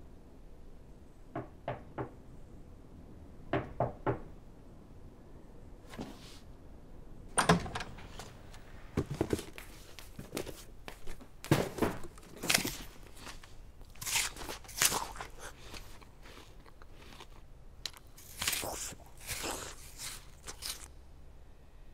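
Sharp crunches and knocks: a few paired taps in the first four seconds, then a dense, irregular run of crunching from about seven seconds in, loudest at about seven and a half seconds.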